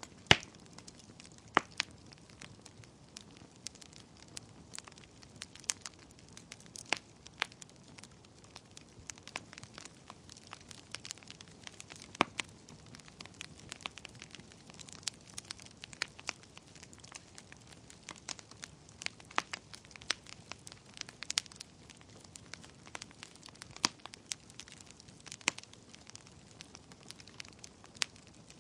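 Wood fire burning in a fireplace, crackling and popping irregularly over a low steady hiss, with a few sharper, louder pops.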